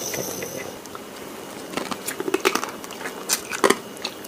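Close-up eating sounds of whole boiled frogs being bitten and chewed: wet mouth sounds with several sharp crackles and crunches, clustered a little past the middle and again near the end.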